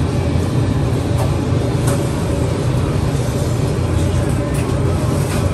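Steady low mechanical rumble, like an engine or motor running without a break, over a noisy background with a few faint clicks.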